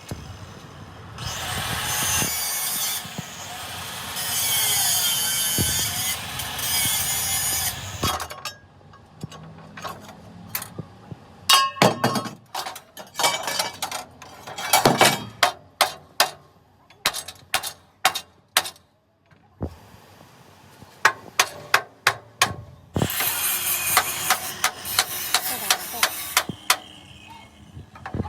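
Workshop metalwork: a power tool runs in two long stretches with a harsh, hissing grinding-type noise, and between them comes a string of sharp separate strikes like hammer blows on metal.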